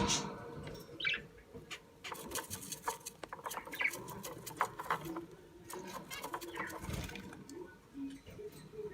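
Budgerigar making short chirps among many scattered clicks and scratching sounds.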